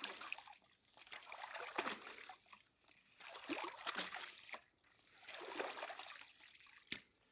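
Water splashing and trickling in a run of short surges, from fishing tackle clogged with weed being lifted and shaken out of the river.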